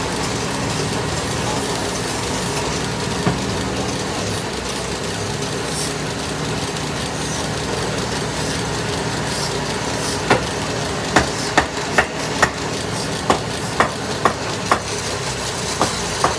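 Motor-driven wood lathe running steadily, spinning a cot leg during colour lacquering. From about ten seconds in, a run of sharp clicks, irregular, about two a second.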